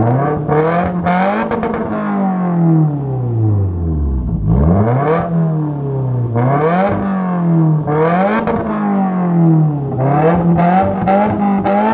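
Subaru WRX turbocharged flat-four, breathing through an aftermarket Drift Xaust exhaust system, revved repeatedly in neutral: about six blips of the throttle, each rising in pitch and falling back to a deep idle note. A few sharp crackles come on the last revs.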